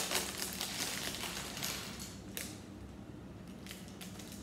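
Clear plastic Lego parts bag crinkling and crackling as it is handled, busiest in the first half and thinning to a few light crackles after about two and a half seconds.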